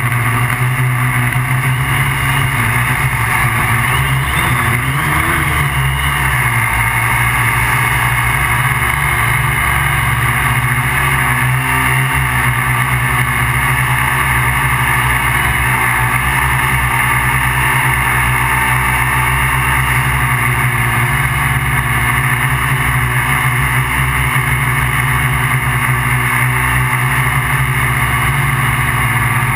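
MikroKopter QuadroKopter XL's electric motors and propellers droning steadily, heard from the camera carried on the craft, over a fluttering low rumble. The motor pitch wavers briefly about four to six seconds in.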